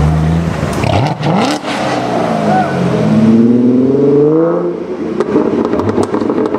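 A Chevrolet Corvette convertible's V8 rumbling low, then revving up sharply as it pulls away. Then a Ford Mustang accelerating hard, its engine pitch climbing for a couple of seconds before it lets off and runs on at a steady rumble.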